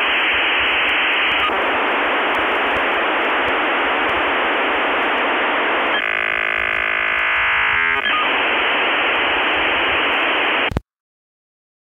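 Loud, steady radio static hiss, squeezed into a narrow band like a two-way radio channel. About six seconds in, a buzzing hum of steady tones sits over it for a couple of seconds. The hiss cuts off abruptly near the end.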